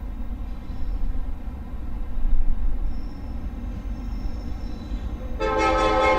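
Low, steady rumble of an approaching diesel freight train, then about five seconds in the locomotive's air horn starts blowing a loud multi-note chord.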